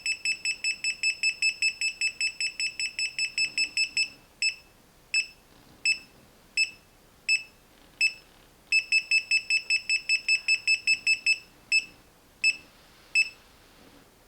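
KAIWEETS KM201 digital multimeter's buzzer beeping in non-contact voltage (NCV) mode beside a live power cord. The high beep comes rapidly, about six or seven a second, as it signals high voltage. It slows to single beeps under a second apart about four seconds in, turns rapid again, then slows near the end.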